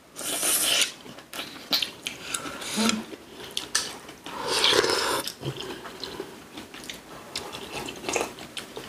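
Close-miked eating sounds: chewing and biting food, with many short light clicks of cutlery against dishes. There is a noisy burst at the very start and a louder eating noise about halfway through.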